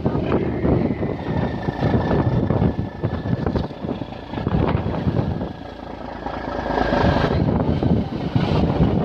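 Fishing boat's engine running, with gusty rumbling noise and a faint steady high whine over it.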